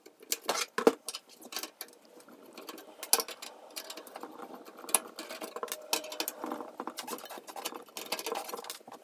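Phillips screwdriver backing screws out of a computer case's steel back panel to free the case fan: irregular small clicks and metal scrapes, with faint squeaking from about four seconds in.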